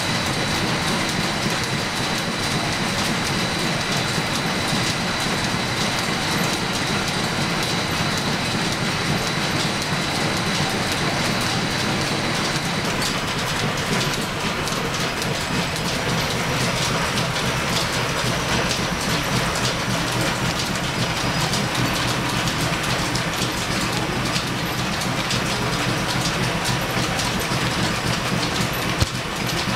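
Steam-driven line shaft, flat belts and a belt-driven lathe running together, a steady rhythmic clatter. A thin high whine runs alongside for the first twelve seconds or so, then stops.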